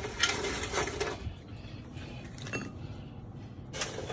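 Light clinks and taps of popcorn chicken pieces being picked off a metal baking sheet by hand and dropped into a bowl, over a steady low hum. The clinks come thickest in the first second and again near the end.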